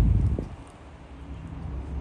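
Wind buffeting the microphone: a low rumble that is loudest right at the start and falls away after about half a second.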